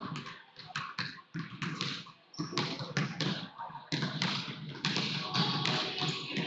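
Several basketballs dribbled on a hardwood gym floor during warm-ups: irregular, overlapping bounces that echo around the large gym.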